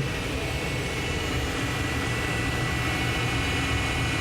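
Citizen L20EIX Swiss-type CNC lathe running with its main spindle turning at 1500 RPM: a steady machine hum with a steady high whine over it.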